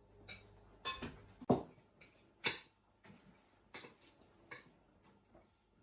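Spoons and forks clinking and scraping against plates and bowls as people eat: a string of irregular sharp clinks, the loudest in the first two and a half seconds.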